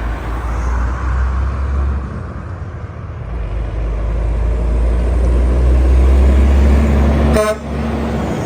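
Large road vehicle, likely a heavy truck, driving past with a deep engine rumble that swells over several seconds. It is cut by a brief sharp sound near the end, after which the rumble drops away.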